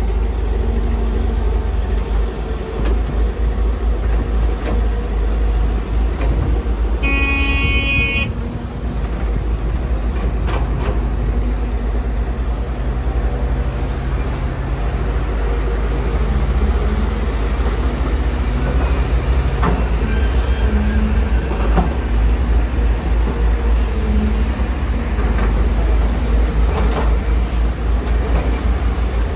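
Heavy diesel engines of a Kobelco SK250 excavator and the dump trucks it loads, running with a steady deep rumble. About seven seconds in, a vehicle horn toots once for about a second.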